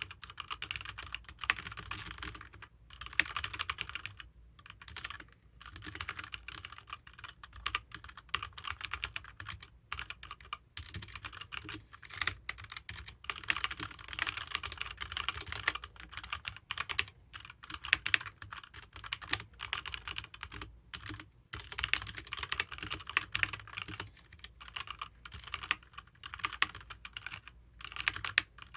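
Typing on a HyperX Alloy Origins mechanical keyboard with HyperX Red linear switches: a fast, continuous run of key strokes, broken by a few short pauses.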